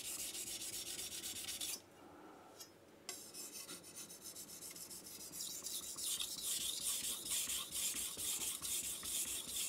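A Mac kitchen knife stroked back and forth on a King S-1 6000-grit whetstone, the steel edge scraping across the wet stone in quick repeated strokes. There is a short pause about two seconds in.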